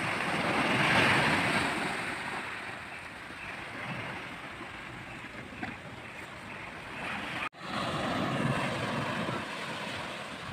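Sea waves washing in and out at the shoreline, a surge swelling about a second in and ebbing. A brief dropout, then another wash of surf.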